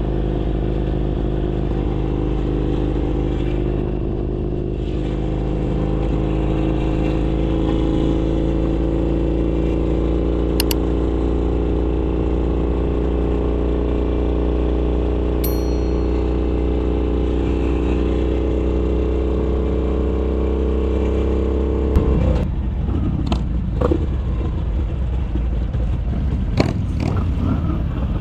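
Harley-Davidson Sportster Iron 883's air-cooled V-twin running through an RSD 2-into-1 exhaust at a steady cruise, its note rising slowly. About 22 seconds in the revs drop sharply as the throttle closes, leaving a rougher, lower note with a few clicks and knocks.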